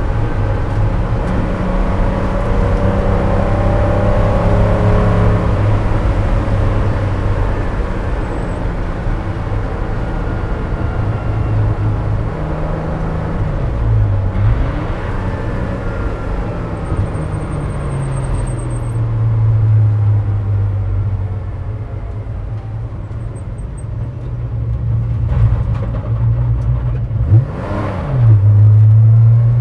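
Air-cooled flat-six of a 1977 Porsche 911 spec race car, heard from inside the cockpit, running at part throttle on a slow lap. The pitch dips and recovers about halfway through as the driver shifts. Near the end the car slows into the pit lane with another dip and a brief rise before the engine runs louder.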